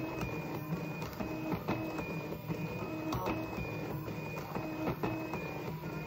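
Arduino-driven stepper motors of a Rubik's cube solving machine whining as they turn the cube's faces in rapid succession. Each move is a short steady whine, its pitch jumping from move to move, with sharp clicks as the faces snap round.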